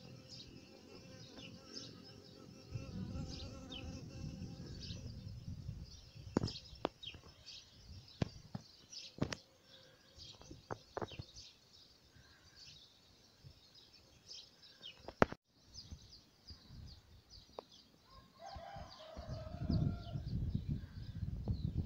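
Small birds chirping over and over, with an insect buzzing in the first seconds. Several sharp clicks come in the middle, and a lower call comes near the end over a low rumble.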